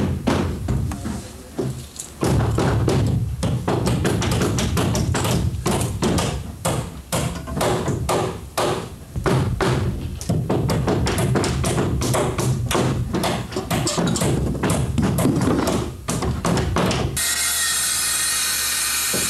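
Many irregular hammer blows knocking on wood framing. About 17 seconds in, a handheld circular saw starts and cuts a board with a steady high whine.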